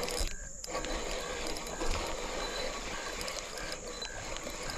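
Fishing reel being cranked to bring in a hooked fish, its gears running with a light click repeating two to three times a second.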